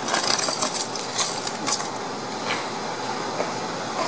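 Rustling, scraping handling noise from something rubbing against the camera and its microphone, with irregular clicks and knocks.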